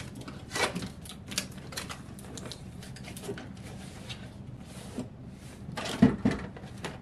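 A cardboard product box being opened and handled by hand: a string of small clicks and rustles as the flaps and packaging are worked, with a louder burst about six seconds in.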